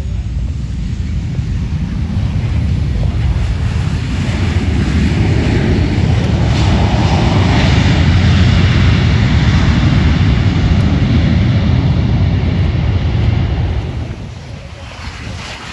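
Airplane passing close by, its engine noise rising to a loud peak about halfway through, then fading away near the end.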